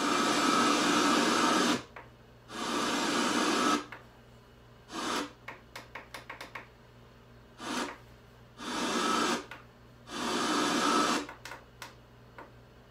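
Boombox radio hissing with static, coming and going in loud bursts of one to two seconds as its knob is turned, with quieter gaps holding runs of rapid clicks.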